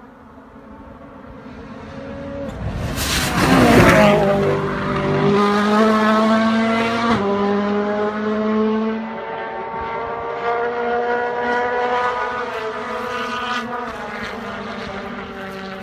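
Ford Fiesta WRC rally car's 1.6-litre turbocharged four-cylinder engine at full throttle, rushing past close by with the loudest moment about three to four seconds in. It then pulls away up the road, its pitch climbing in each gear and dropping back at several quick upshifts as it fades.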